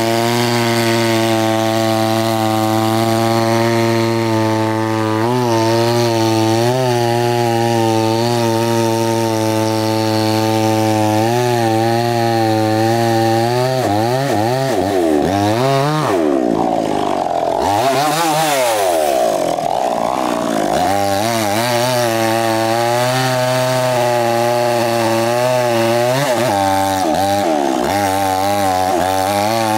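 Two-stroke chainsaw running at steady high speed as it cuts into the base of a large albasia trunk. In the middle, for several seconds, the engine speed dips and rises repeatedly, then it settles back to a steady pitch.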